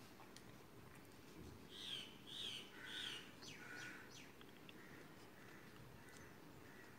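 Faint bird calls: three quick falling chirps about two seconds in, then a few fainter calls.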